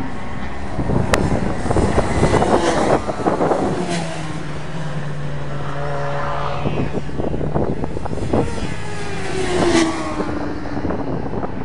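Racing motorbikes passing one after another at speed. Several engine notes overlap, rising as they rev and falling in pitch as each goes by.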